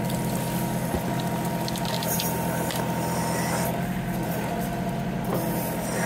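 John Deere compact tractor's diesel engine running steadily as the backhoe digs into a tree stump under hydraulic power, with a few faint ticks about two seconds in.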